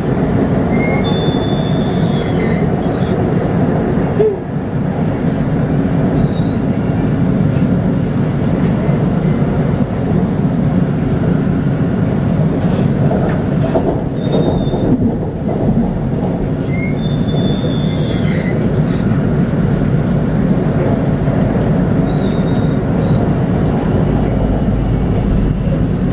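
Siemens Inspiro metro train running along the line, heard from on board: a steady low rumble from the wheels and running gear, with short high-pitched tones cropping up every few seconds.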